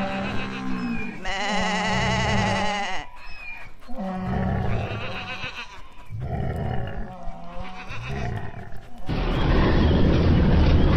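A series of animal calls, each a second or two long, one with a strongly wavering pitch. About nine seconds in they give way to a steady rushing noise.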